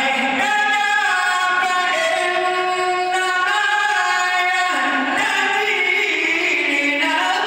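A man's voice chanting a Quran verse in melodic recitation style, drawing out long held notes that glide between pitches, with a step down in pitch about halfway through.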